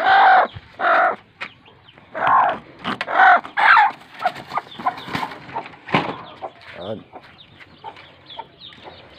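Chickens clucking, with several loud calls in the first four seconds, then softer rapid high peeping of chicks. A sharp knock sounds about six seconds in.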